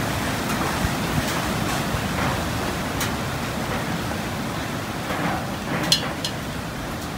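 Cats chewing and tearing raw chicken off metal plates, over a steady hiss of background noise, with a few sharp clicks and the loudest click about six seconds in.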